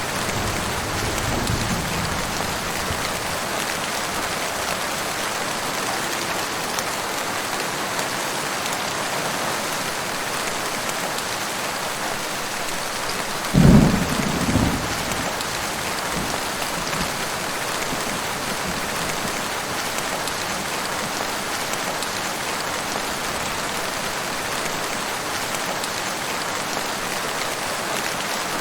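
Heavy rain falling steadily. About halfway through comes a sudden crack of thunder with a short rumble after it, and the tail of an earlier rumble fades away at the start.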